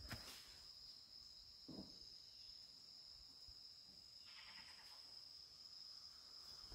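Steady, faint high-pitched insect drone of the swamp forest. A footstep knocks on the wooden boardwalk planks right at the start, and a brief faint raspy animal call comes about four seconds in.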